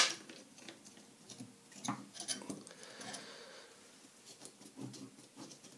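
Broadhead crossbow bolts being handled and fitted into a pistol crossbow: a sharp click right at the start, then faint scattered clicks and light scraping.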